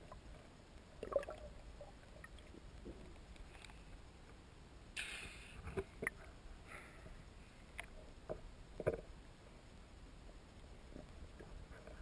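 Faint underwater knocks and bumps from a handheld camera during a breath-hold dive. About five seconds in there is a brief splashing rush as the camera breaks the water surface.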